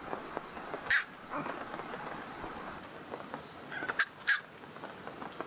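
Small Pomeranian giving short, sharp yipping barks: one about a second in, then two in quick succession about four seconds in.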